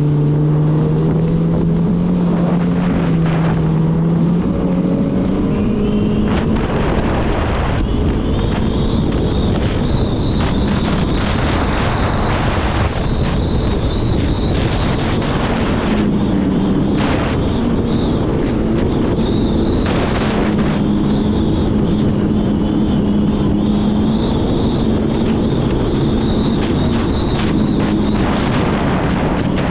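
Jet ski engine running at speed, its drone rising a little in pitch in the first few seconds, with a high steady whine from about seven seconds in. Wind buffets the microphone and water spray hisses throughout.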